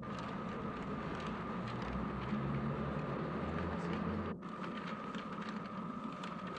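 Noisy old film soundtrack: a steady high hum over a low rumble, flecked with many small clicks and rustles. The sound drops out for an instant about four seconds in, and the rumble falls away after it.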